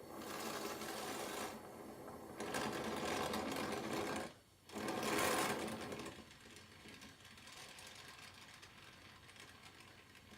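Oxy-acetylene torch flame hissing with a fine buzzing flutter, its level swelling and falling in stretches and dropping out briefly about four and a half seconds in, then running quieter and steady.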